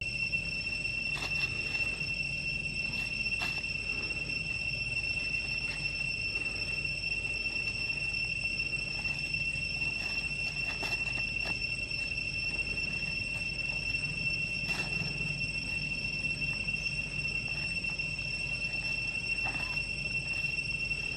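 Steady high-pitched insect drone, one unbroken whine, with scattered faint clicks and rustles.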